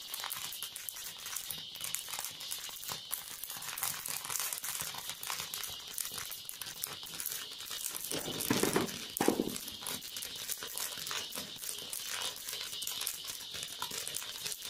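Sorghum grains popping in a hot iron wok under a cloth: a dense, rapid scatter of small crackling pops, with the cloth rustling as a stick stirs it. Twice, a little past the middle, the rustle briefly gets louder.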